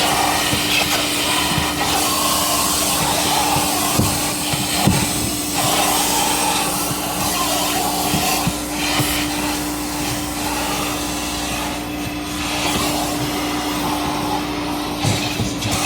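Vacuum cleaner running steadily inside a car, a constant motor hum under a loud rush of suction. There are a few short knocks about four and five seconds in and again near the end.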